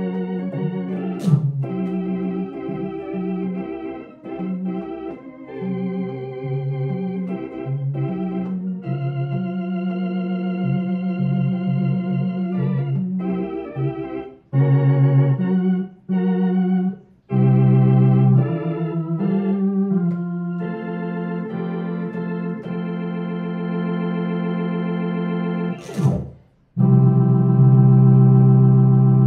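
Home electronic organ played in a blues style: held chords with a wavering vibrato over a low bass, broken by short gaps. A sharp click comes about a second in and another near the end, just before a loud sustained chord.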